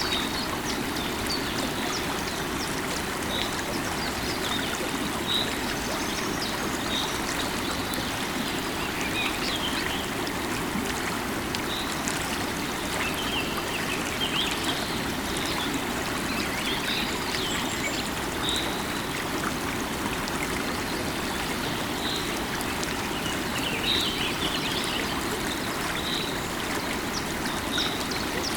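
Flowing river water running steadily over stones, with birds giving short high chirps every second or two.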